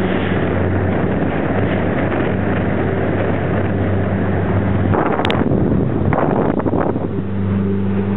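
Outboard motor of a small boat running steadily at speed, its low hum mixed with heavy wind buffeting on the microphone and water rushing past the hull. About five seconds in, the hum is briefly drowned out by wind noise and a sharp click, and it comes back clearly near the end.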